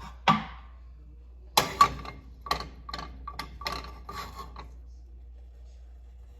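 Metal clanks and clicks as a grill pan is put on the stove burner, ending in an even run of sharp, ringing clicks, about four a second, that stops a little over four seconds in.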